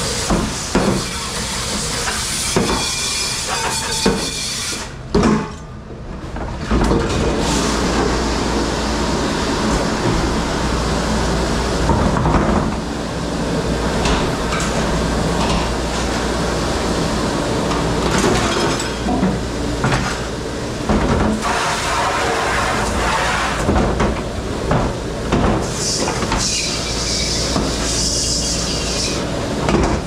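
Commercial dish room at work: dishes and trays clattering and knocking over the running rumble and hiss of a dishwashing machine, with a steady low hum coming in about seven seconds in.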